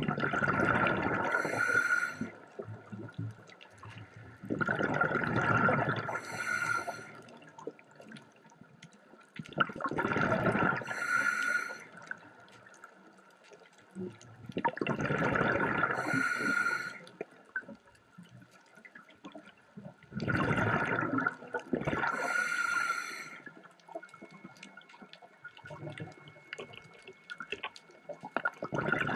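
Scuba diver breathing through a regulator: a hissing breath and a gush of exhaled bubbles about every five seconds, with a longer pause near the end.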